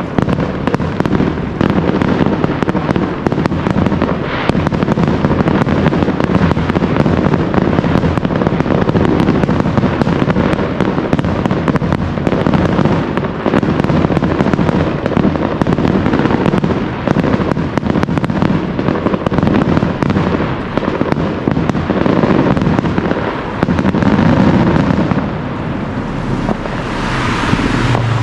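Fireworks display in a dense, continuous barrage of bangs and crackles, easing off near the end.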